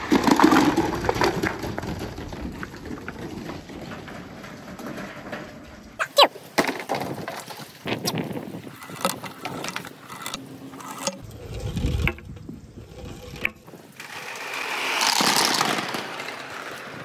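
Billiard balls rolling and clacking along a rain-gutter marble course with water running through it. Many sharp knocks of ball on ball and ball on gutter sound over a rushing noise, which swells near the end.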